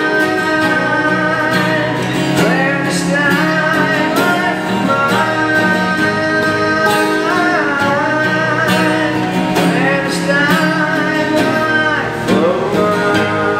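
A band playing a song live: a sung lead vocal over guitars and drums.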